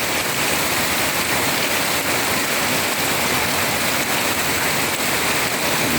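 Heavy rain falling steadily on the ground and plants, a dense even hiss of rain.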